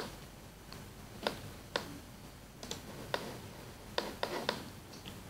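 Computer mouse clicking: about nine short, sharp clicks at irregular spacing, some in quick pairs, over faint room hiss.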